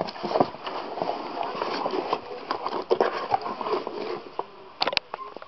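Cardboard shipping case being opened by hand: flaps rustling and scraping with many small irregular knocks, and two sharp clicks near the end.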